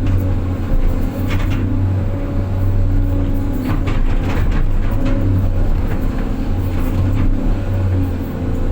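Six-wheel truck's diesel engine running steadily, with occasional short knocks and rattles.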